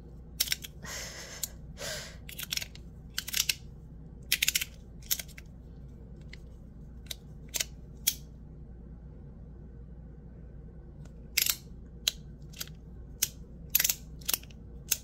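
Titanium fidget slider being slid back and forth in the hand: irregular sharp metallic clicks and snaps, with a couple of short sliding scrapes about a second in.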